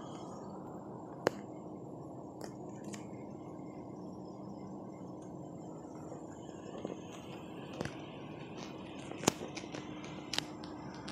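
Steady low hum inside a car, with scattered sharp clicks and taps from a phone being handled, the loudest about a second in and near the end.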